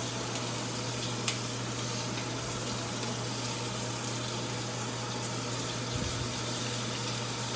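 Steady sizzling of bone-in pork chops searing on a hot ridged grill pan, with green beans frying in oil alongside, over the steady hum of a range hood fan.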